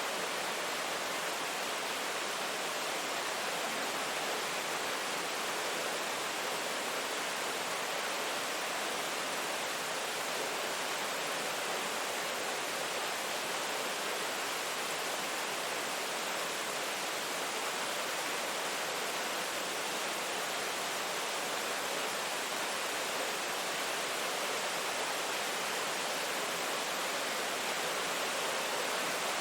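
Steady, even rain noise with no separate drops or thunder, a dense hiss that doesn't change.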